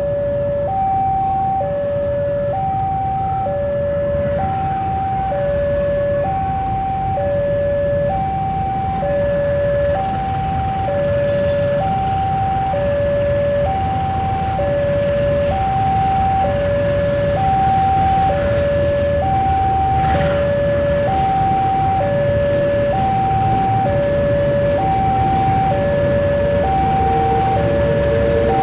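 Railway level-crossing warning alarm sounding a steady two-tone high-low signal, the tones alternating about once a second. It runs over a low, steady rumble from a shunting diesel locomotive's engine and traffic.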